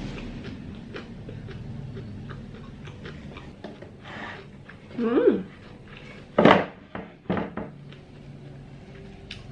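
A house cat meows once about halfway through, a short call that rises and falls in pitch. A few short, louder noises follow close after it.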